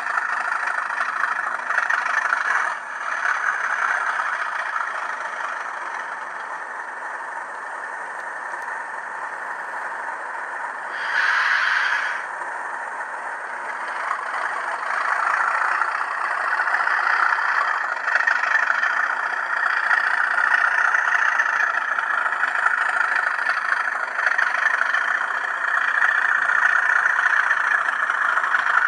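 N gauge Class 37 model locomotive's DCC sound decoder playing a Class 37 diesel engine running sound through the loco's small speaker. It runs steadily, with a brief brighter burst about eleven seconds in, and grows louder in the second half.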